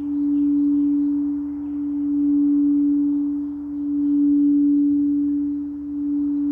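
Singing bowl sustaining one pure, steady tone that swells and fades about every two seconds as it is rimmed.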